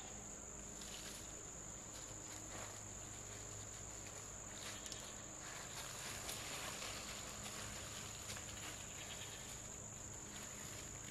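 A steady, high-pitched insect chorus trilling without a break, with a few faint rustles.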